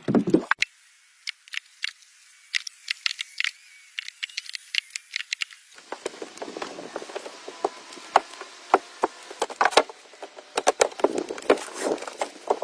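Sticks and wood being handled: irregular light clicks, snaps and knocks, thin for the first half and fuller from about halfway.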